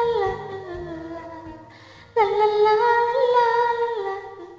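A woman singing long, wordless held notes, humming-like: one phrase fades out, and a second starts loudly about two seconds in and slides down near the end.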